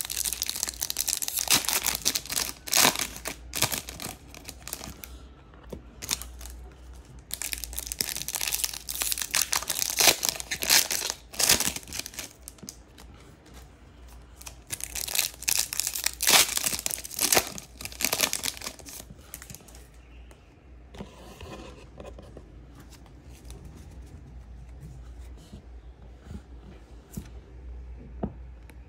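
Foil wrappers of Topps Chrome baseball card packs being torn open and crinkled, in three bouts of rustling, the last ending about two-thirds in, then only faint handling noise.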